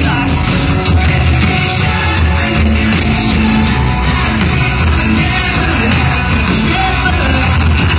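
Live pop-rock band playing loudly on stage, with a female singer over heavy bass and drums, heard from within the crowd.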